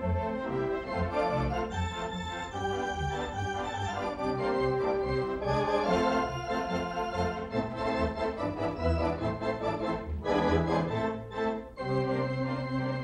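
Organ music: a melody over held bass notes, with a brief break near the end before the next phrase.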